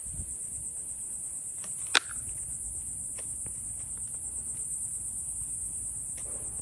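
Steady high-pitched chorus of insects, with one sharp click about two seconds in.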